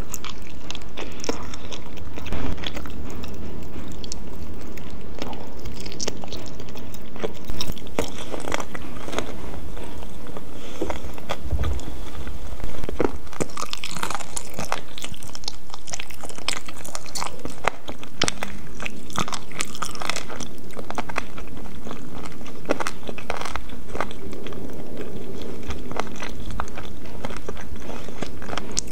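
Close-miked eating sounds: a person biting into a piece of chicken and then chewing at length, with many small clicks and some crunching.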